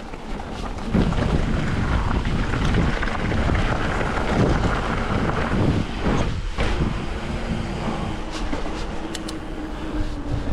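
Mountain bike rolling down a dirt trail: wind buffeting the microphone over the rumble of the tyres and rattles from the bike. A faint steady tone joins about two-thirds of the way in.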